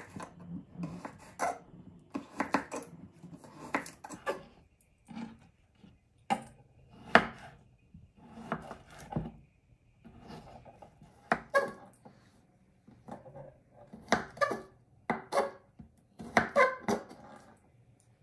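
Chef's knife slicing a raw carrot into sticks on a wooden cutting board: irregular knocks of the blade cutting through onto the wood, coming in quick clusters with short pauses between them.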